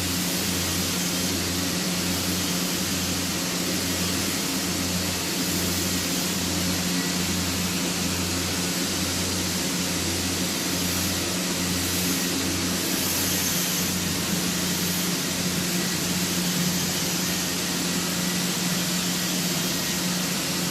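TIG welding arc on a 2-inch sanitary stainless pipe butt joint, a steady hiss with a constant electrical hum and a low throb about once a second.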